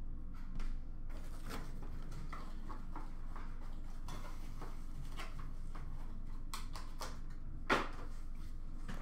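Quiet room tone with a steady low hum, a few faint clicks and one sharper knock near the end.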